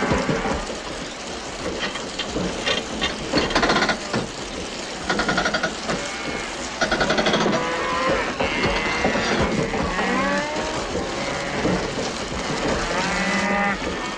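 Cattle mooing and bellowing over and over, several overlapping calls, some rough and wavering in pitch, from the cattle in the wrecked truck's trailer.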